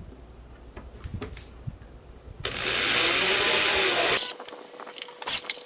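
A power drill-driver runs for about two seconds, driving a screw into the drawer's mounting rail; its pitch rises and falls as the screw takes up. Light clicks of handling come before it.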